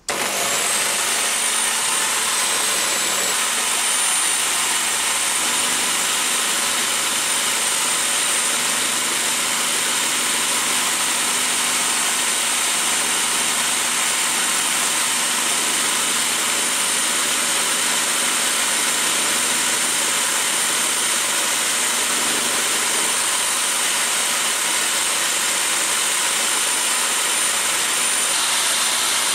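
Electric power drill running steadily at speed, driving a flycutter that takes cuts across the end face of an aluminium bar. A thin, high whine sits over the steady motor noise.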